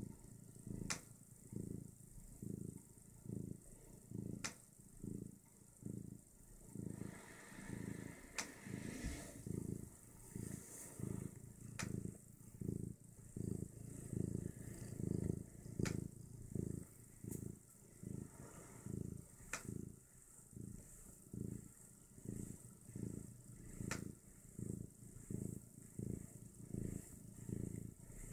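Domestic cat purring close up, in an even rhythm of about two low pulses a second. A few sharp clicks come every few seconds.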